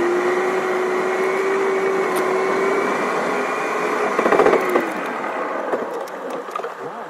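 Car cabin noise while driving: steady engine and road noise with a constant whine. It dies down after about five seconds as the car slows to a stop.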